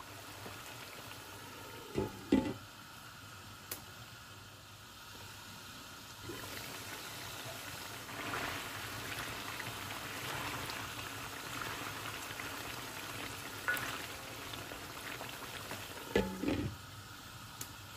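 Chicken pieces and whole tomatoes bubbling and sizzling in oil in a cast-iron karahi. There are a couple of knocks about two seconds in, and a short clatter near the end as a glass lid is set down on the pan.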